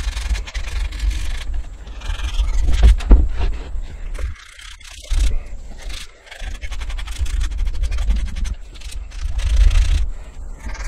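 Hand sanding with 180-grit sandpaper, rubbing strokes over painted wood to take off excess cured epoxy at a glued chair joint. There are brief pauses about four and six seconds in, and a low rumble runs underneath.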